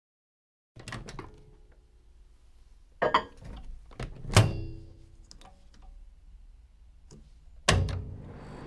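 Microwave oven being loaded: clicks and clatters as the door opens and a dish is set inside, one loud clunk with a short ringing clink. Near the end the door shuts with a loud clunk and the oven starts running with a steady hum.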